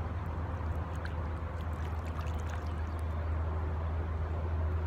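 Water splashing and trickling beside a small boat, over a steady low hum.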